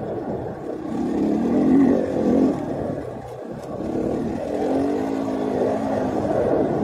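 2018 KTM 500 EXC's single-cylinder four-stroke engine under a rider on the trail, its pitch rising and falling as the throttle is worked. It eases off briefly about three seconds in before picking up again.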